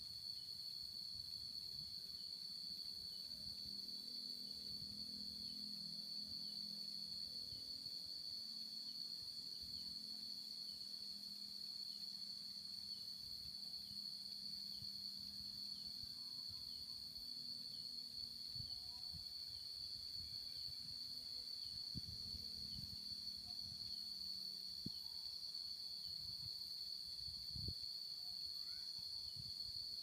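A steady, high-pitched insect drone, one unbroken tone that holds level throughout. Beneath it are a faint low rumble and a few soft low knocks in the second half.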